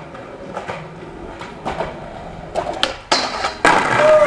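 Skateboard on rough concrete paving: a series of sharp clacks and knocks from the board, then loud wheel roll that starts about three and a half seconds in.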